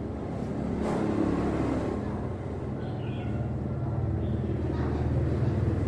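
A motor or engine running steadily with a low hum, growing slightly louder, with a faint click about a second in.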